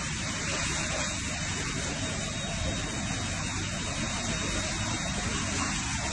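Steady hiss of heavy rain and running water on a flooded street, with no break or change.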